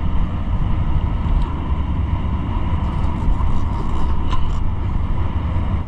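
A motorboat engine running steadily, a constant low rumble with a faint whine above it, cut off abruptly at the end.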